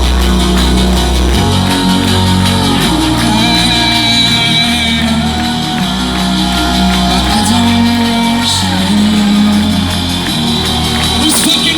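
Live electronic pop band playing loud through a concert PA, with a heavy bass line that changes every second or two under sustained synth chords, and a crowd shouting and whooping along.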